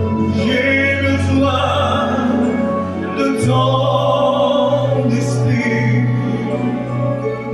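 A man singing a slow French worship song into a microphone over a backing of held low bass notes. The bass moves to a new note about three and a half seconds in.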